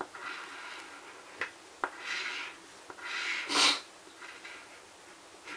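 A coin scratching the coating off a paper instant lottery ticket in several short scraping strokes, with a couple of light clicks between them; the loudest stroke comes a little past halfway.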